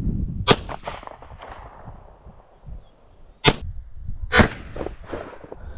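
Chambers Custom 9mm pistol firing: sharp reports about half a second and three and a half seconds in, with another crack about a second after the second, over wind buffeting the microphone.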